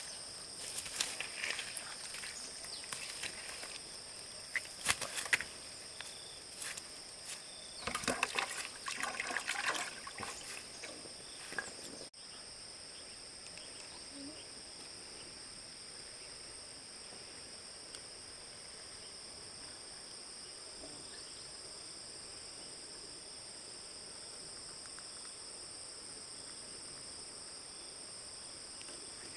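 Steady high-pitched insect chorus, crickets or similar, held on two high notes. Over the first twelve seconds or so, irregular rustling, clicks and knocks of handling sound over it, then stop abruptly, leaving the insects alone.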